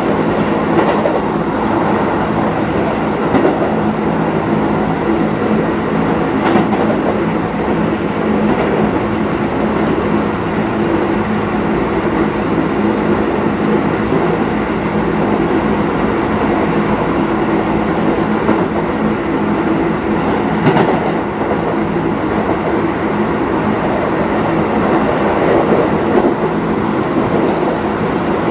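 Running noise inside a Keisei 3050-series electric train car, heard at a steady speed: wheels on rail with a steady hum from the running gear, and two sharp knocks, about six seconds in and again near twenty-one seconds.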